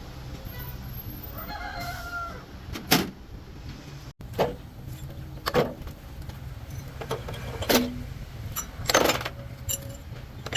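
A rooster crows briefly about two seconds in, followed by about six sharp, irregularly spaced knocks of work on metal parts.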